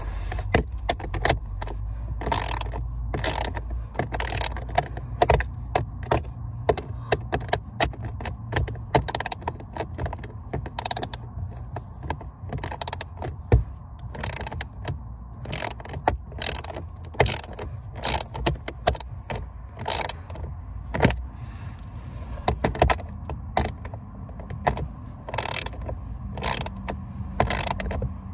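Ratcheting 8 mm wrench clicking in quick, uneven strokes as it drives the self-tapping screws that hold the blower motor to its plastic housing. A steady low hum runs underneath.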